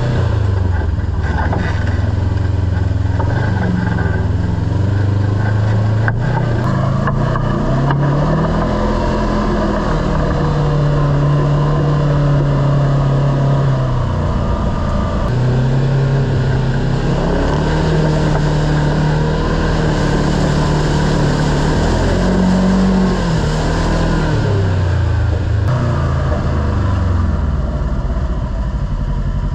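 Kawasaki Teryx KRX 1000 side-by-side's parallel-twin engine running under way on the trail, its pitch rising and falling again and again as the throttle is worked.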